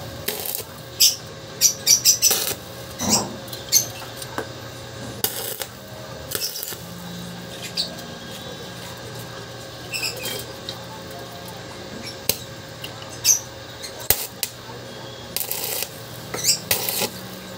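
Stick (arc) welding on a steel grate: the arc crackles and spits in short, irregular bursts, with sharp clicks between them as the rod is struck and lifted.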